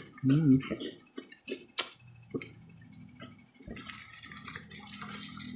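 Eating sounds: scattered light clicks and ticks of utensils against a plate, with a short hummed "mm" near the start.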